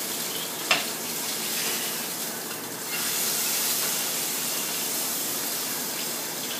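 Salmon fillet searing in hot oil in a frying pan: a steady sizzling hiss, with one short sharp knock less than a second in.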